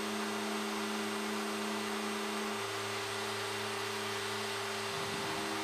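Steady in-flight drone of a Fairchild Metro SA227's twin Garrett TPE331 turboprops in cruise: a hum of several steady tones over a hiss. About two and a half seconds in, the tones shift lower. Near the end they waver briefly before settling.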